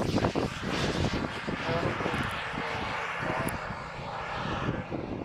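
A propeller airplane's engine is heard as the plane passes. The engine sound swells about a second in and eases off near the end.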